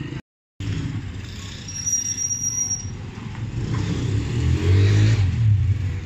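Street traffic with a motorcycle engine passing close, its low hum growing louder to a peak about five seconds in. A brief high whine sounds about two seconds in.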